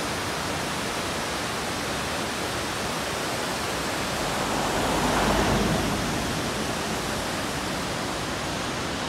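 Steady rush of a river, with a car passing on the snowy road that swells the sound about five seconds in.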